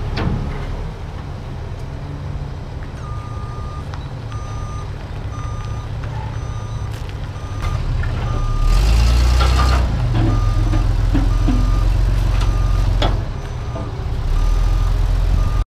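Large forklift's engine running as it drives up onto a trailer deck, with its warning beeper sounding a little faster than once a second from about three seconds in. The engine grows louder about halfway through as the forklift climbs on.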